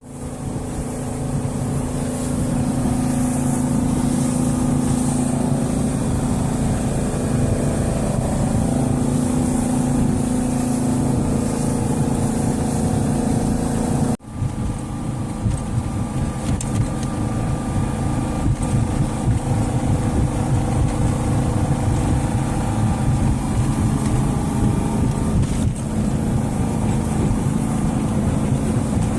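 Small cruise boat's engine running steadily under way, with a brief dropout about halfway through before it carries on.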